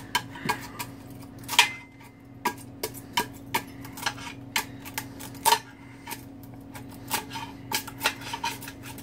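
Irregular metallic clinks and scrapes, about one or two a second, of a hand tool prying and knocking broken catalytic converter remnants out of a cut-open Harley exhaust pipe section. A steady low hum runs underneath.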